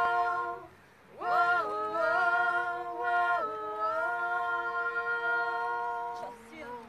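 Small group of women's voices singing a cappella in close harmony. A brief held chord breaks off, then about a second in the voices slide up into a long sustained chord that shifts a little and fades near the end.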